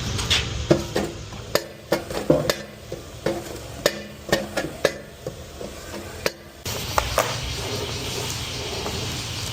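A series of irregular light clinks and knocks, some with a brief ring, like hard objects or utensils handled against one another. About two-thirds of the way through it gives way abruptly to a steady low rumble and hiss.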